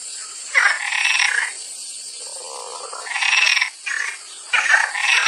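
A frog calling: a string of short croaking calls, one lower-pitched, spaced roughly half a second to a second apart.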